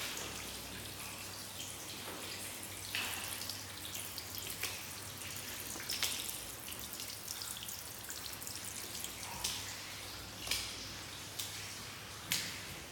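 Water leaking into a flooded stairwell, dripping and splashing onto the stair treads. There is a steady patter with louder single splashes every second or two.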